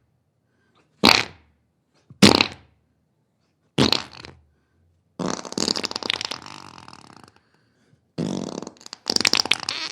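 Human flatulence: three short farts about a second apart, then a long sputtering, rattling fart lasting about two seconds, then two more farts near the end.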